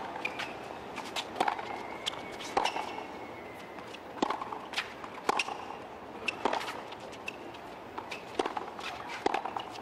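Tennis rally on a hard court: sharp racquet strikes on the ball and ball bounces, about one every half second to second, over a steady low background hiss.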